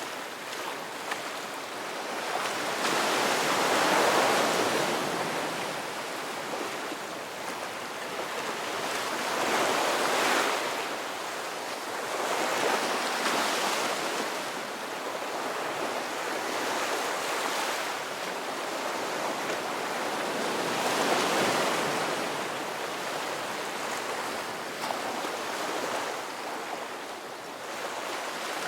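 Ocean surf: a continuous hiss of waves washing in and breaking, swelling and easing every several seconds.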